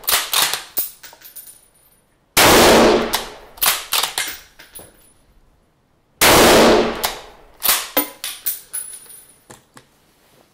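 Sauer S404 bolt-action rifle in .308 fired twice, about two seconds in and again about six seconds in, each loud shot ringing away over about a second. After each shot, and at the start following a shot just before, the bolt is worked in a quick run of metallic clicks and clacks, ejecting the case and feeding the next round.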